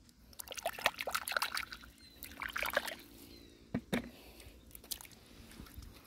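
Shallow water splashing and dripping as hands work through it, in two quick flurries of small splashes, then two sharper splashes about four seconds in and a few lighter drips after.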